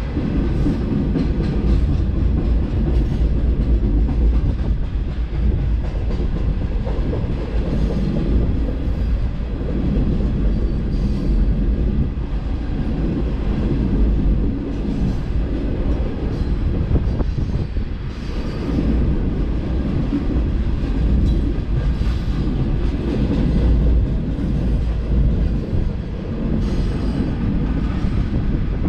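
Freight train of hopper cars rolling past close by: a steady heavy rumble of steel wheels on rail, with repeated clacks.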